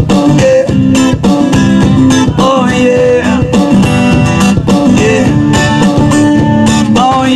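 Instrumental break of a one-man band: acoustic guitar strummed and picked, with bending notes, over a steady beat of foot-played percussion.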